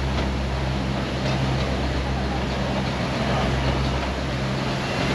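Narrow-gauge toy train running, heard from inside a coach: a steady rumble of wheels on track with a low, even hum underneath.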